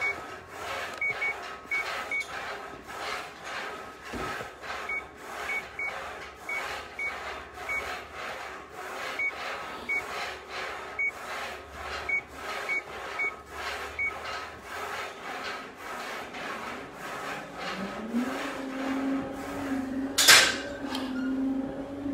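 Breathing through an SCBA facepiece and regulator: a rhythmic rasping hiss with each breath, with scattered short high beeps. A low hum starts up near the end, and one sharp loud click comes about two seconds before the end.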